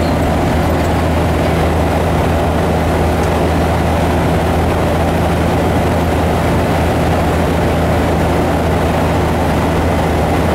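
Kenworth truck's diesel engine droning steadily at cruise, heard inside the cab over the hum of tyres on the road.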